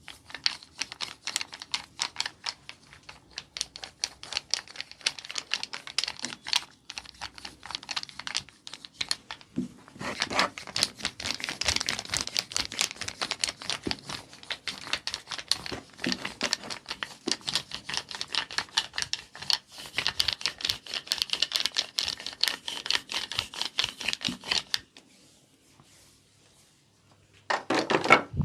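Rapid, dense sharp clicks and snaps of hands working quickly over skin in a massage. They break off for a couple of seconds near the end, then come back in a louder burst.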